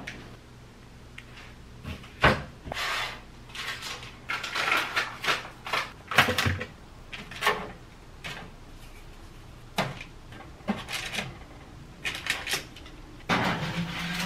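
Kitchen handling sounds while baking cookies: an irregular string of knocks, clicks and short scraping rustles from doors and bakeware being moved.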